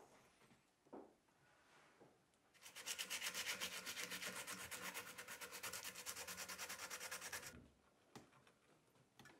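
Rapid back-and-forth sanding or rubbing on the wooden handle of a cricket bat clamped in a vise, in a fast, even rhythm of strokes that starts about two and a half seconds in and stops after about five seconds.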